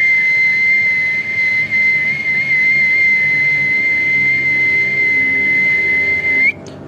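A man whistling one long, steady, high note through pursed lips. The pitch wavers slightly, and the note is held for about six and a half seconds before flicking briefly upward as it stops.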